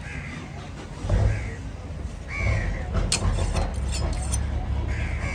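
Crows cawing several times in short harsh calls over a steady low rumble, with a few sharp metal clinks in between.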